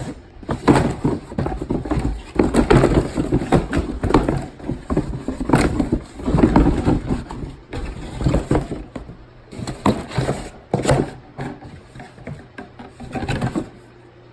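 Irregular rustling, scraping and knocking of packaging being rummaged through by hand.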